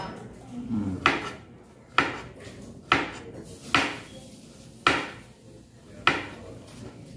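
A chef's knife slicing through a cucumber and striking the cutting board: six separate chops, roughly one a second.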